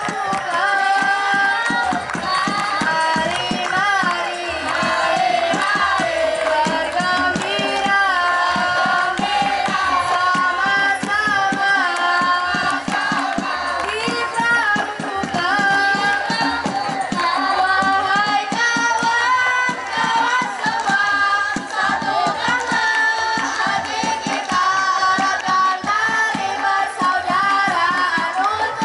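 Music: a song with a melody carried over a steady, quick drum beat.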